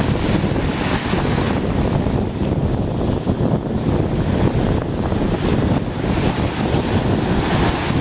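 Small sea waves breaking and washing up the sand close by, surging and receding every couple of seconds, with wind rumbling on the microphone.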